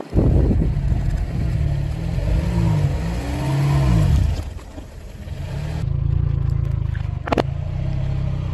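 Car engine running at low speed, its pitch rising and falling, as a tyre rolls slowly onto a row of soap bars and presses them down. A single sharp crack about seven seconds in.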